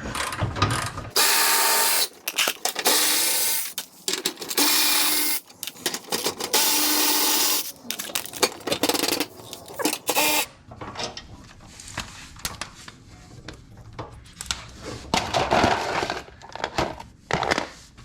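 Power tool spinning out the splash guard bolts in about four runs of a second or so each, with a steady motor pitch. This is followed by scattered light clicks and knocks of bolts and parts being handled.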